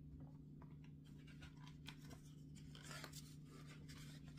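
Faint rustle of a picture book's paper page being turned by hand, over a low steady hum.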